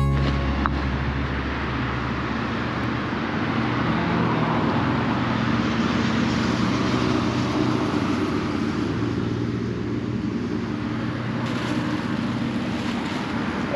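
Steady motor engine noise in the open air: a low hum with a constant hiss over it.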